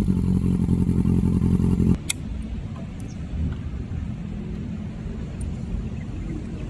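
Sport motorcycle engine idling through its exhaust after a throttle blip. About two seconds in the idle cuts off suddenly, leaving a quieter low rumble.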